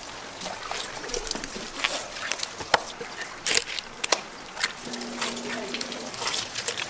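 Knife cutting and scraping fish on a wooden cutting board: a run of sharp clicks, taps and wet slaps as the fins and flesh are trimmed. A low steady hum joins about five seconds in.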